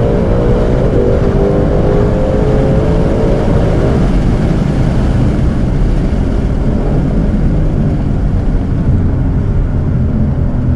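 Ford Mustang Shelby GT500's supercharged 5.2-litre V8 under load during a hard pull on its stock intake. The engine note climbs in pitch for about the first four seconds, then settles into a steady loud low rumble.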